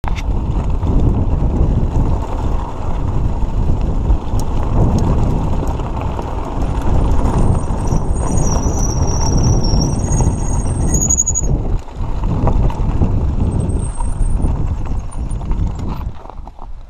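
Mountain bike rolling fast over a rocky dirt trail: tyres crunching on loose gravel and the bike rattling over the bumps, with heavy wind buffeting on the microphone.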